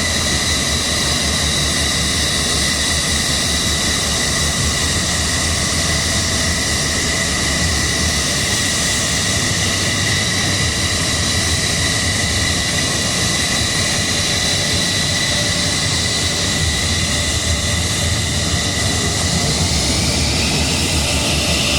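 F-15SG fighter jet's engines running on the ground, a steady whine over a loud rushing noise. About twenty seconds in, the whine starts to rise in pitch.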